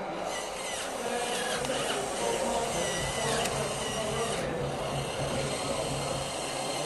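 Huina RC excavator's electric motors whirring steadily as the arm and bucket move in gravel, with faint voices in the background.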